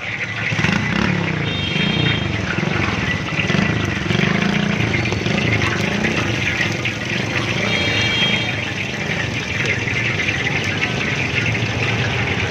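Busy street traffic: car and motorcycle engines running in a steady din, with two short high-pitched beeps, one about a second and a half in and one about eight seconds in.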